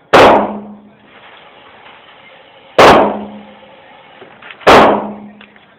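Three pistol shots, each a sharp crack with a short ringing tail, the gaps between them about two to three seconds.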